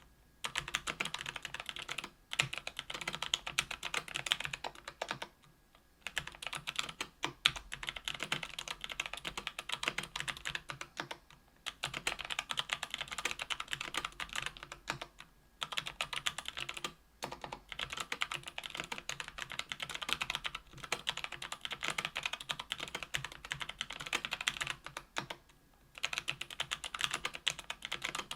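Steady typing on a mechanical keyboard with lubed Kailh BOX Brown tactile switches (60 g) on an aluminium plate in an aluminium 65% case. Fast runs of keystrokes are broken by several short pauses, the longest about five seconds in.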